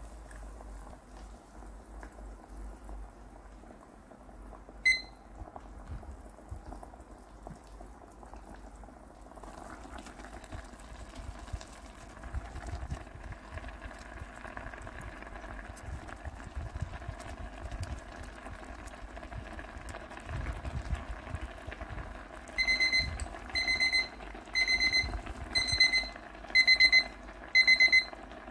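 Water with instant noodles simmering in an electric pot, a steady bubbling hiss that grows louder after about ten seconds. A digital kitchen timer gives one short beep about five seconds in, then near the end its alarm goes off: loud, high, rapid beeping in groups about once a second, signalling that the countdown has reached zero.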